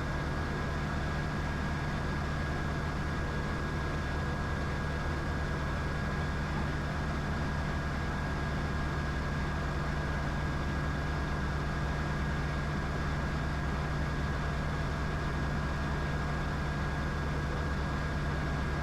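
Diamond DA20 light aircraft's piston engine and propeller running at a steady cruise setting, heard from inside the cockpit as an even low drone with a thin, steady high whine above it.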